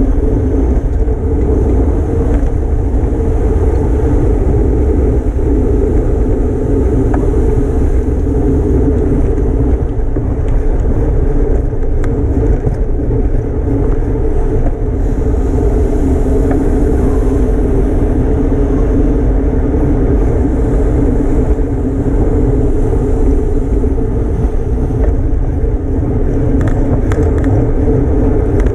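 Deep, steady rush of wind over the microphone of a camera riding along on a road bike at race speed.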